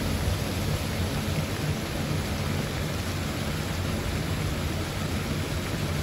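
Floating pond fountain spraying, its falling water splashing steadily onto the pond, with wind rumbling on the microphone.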